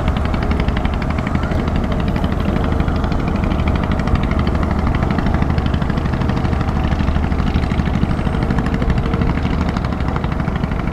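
Small boat engine running steadily with a fast, even chugging beat, dropping off at the very end.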